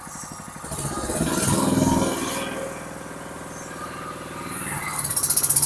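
Small 200 cc stationary petrol engine running a loaded ribbon feed mixer through a belt and gearbox. It is throttled up about a second in, eases back to a steady run, and near the end a fast rhythmic pulsing with a hiss comes in.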